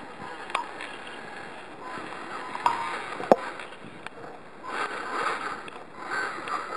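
RC scale crawler working over twigs and forest litter: a steady rushing hiss with a few sharp clicks and snaps in the first half, then louder swells of noise in the second half.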